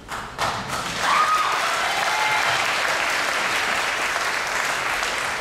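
Audience applause that starts at once and grows louder about a second in, holding steady after that, with a single shout rising above it.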